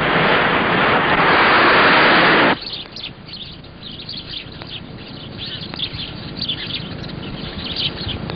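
A steady rush of ocean waves on a shore cuts off abruptly about two and a half seconds in. After the cut, birds chirp over a quiet background, with many short, high chirps.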